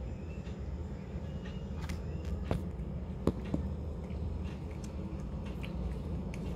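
A cat eating wet mackerel-and-tuna food and dry kibble from a plastic tray: a run of small chewing and crunching clicks, a few sharper ones around the middle, over a steady low hum.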